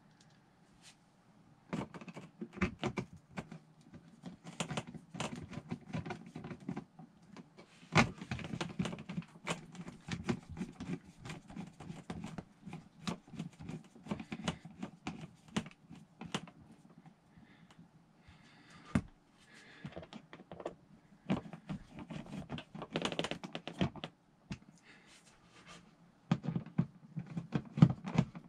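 Hand screwdriver driving screws through a metal light fixture's frame into the ceiling: irregular clicking and scraping of the driver turning in the screw heads, with a few sharper knocks. It starts about two seconds in.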